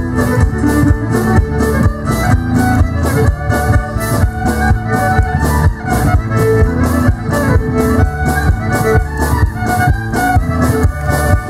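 A fiddle playing a lively Métis reel through the stage sound system, with a steady tapping beat running under the tune.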